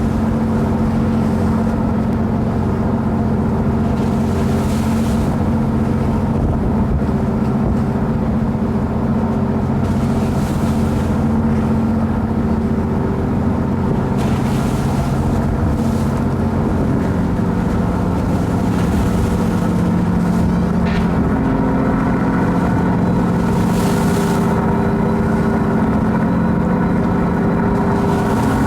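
An engine running steadily, its pitch shifting a little partway through, with a brief rushing noise every four or five seconds.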